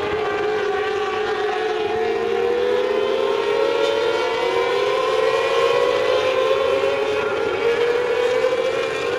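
A pack of mini sprint cars racing, several high-revving engines running together, their overlapping pitches rising and falling as the cars go round, a little louder in the middle as the pack comes closer.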